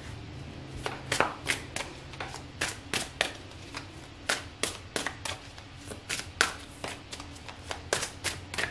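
A tarot deck being shuffled by hand: a run of short card slaps and flicks, about two or three a second, starting about a second in.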